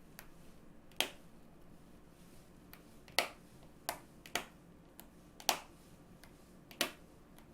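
About six sharp, irregularly spaced clicks over a faint background hiss, as pieces are moved on a tactics diagram.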